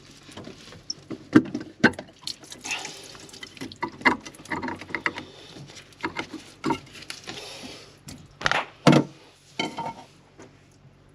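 Seawater sloshing and dripping as a boat engine's raw-water strainer is opened and checked for debris, with scattered knocks and clunks from handling its parts.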